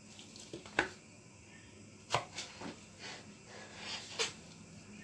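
Kitchen knife working a cucumber: a few short, sharp knocks and scrapes of the blade through the cucumber and against the cutting board.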